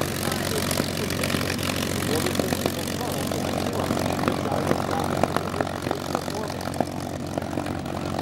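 P-51D Mustang's Packard Merlin V-12 engine running at low power as the plane taxis, a steady uneven drone with frequent short sharp pops. It eases slightly in the second half as the plane moves away.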